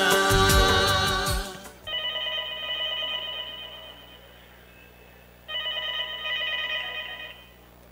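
A sung song cuts off about one and a half seconds in, then a telephone rings twice, each ring about two seconds long with a pause between them.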